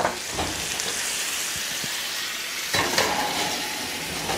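Stuffed chicken rolls sizzling steadily in a hot skillet. About three seconds in there is a short metal clatter as the pan goes onto the oven rack.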